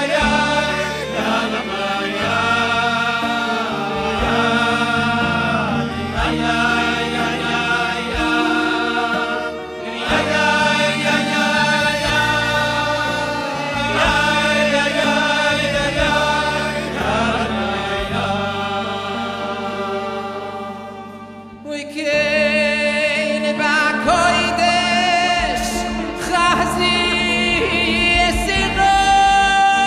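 A group of men singing a Hasidic melody together into microphones, over instrumental backing. About 21 seconds in, the music fades briefly, then picks up again with a single voice leading.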